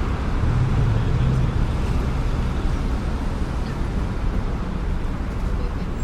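Night city traffic: a steady rumble of cars and engines on the road, with a low engine hum in the first second or two.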